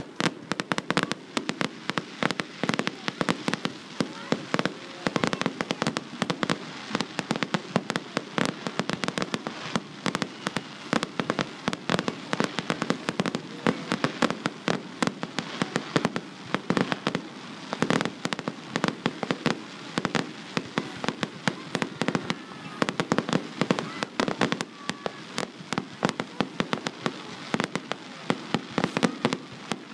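Fireworks display bursting in a rapid, continuous barrage, several sharp bangs a second with crackle between them.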